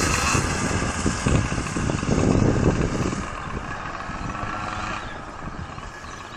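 Twin 49cc two-stroke pocket-bike engines of a motorized drift trike running, growing fainter over the last few seconds.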